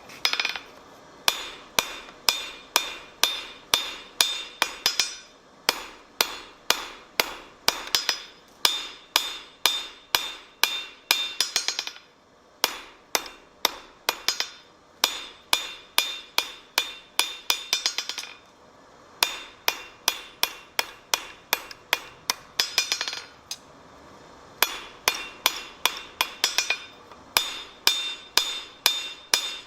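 Blacksmith's hand hammer striking steel on an anvil in a steady rhythm, about two to three blows a second. Each blow rings briefly. The hammering stops for a moment three times, then resumes.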